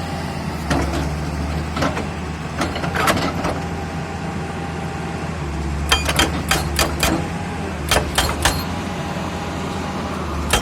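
Heavy diesel engine of an excavator running steadily, with a few scattered sharp metallic knocks.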